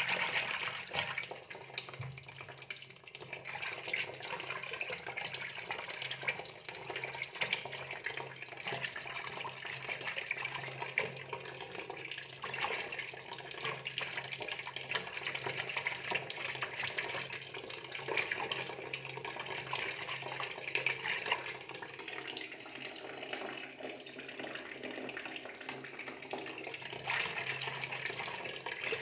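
Water splashing and trickling in a tank crowded with goldfish, a steady run of small splashes over a low, steady hum.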